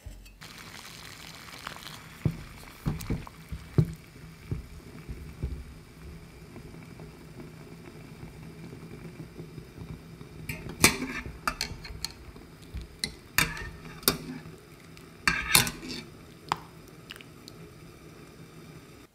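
A saucepan of water with whole tomatoes boiling hard, a steady bubbling rumble. Scattered sharp clicks and knocks against the pot come about two to four seconds in and again from about ten to sixteen seconds.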